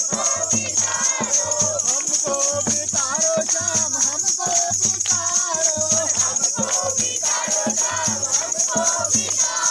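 A group of men and boys singing a Kumaoni khadi holi song together, with a painted two-headed barrel drum beaten in a steady rhythm and hands clapping along.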